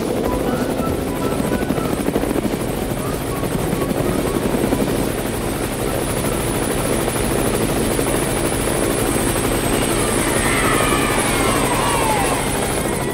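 Helicopter sound effect: a steady rotor and engine drone that holds level throughout.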